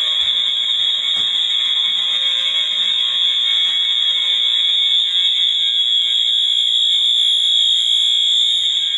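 Fire alarm horns sounding together in full alarm: a loud, steady, high-pitched tone with a fainter buzz beneath it. There is a brief knock about a second in.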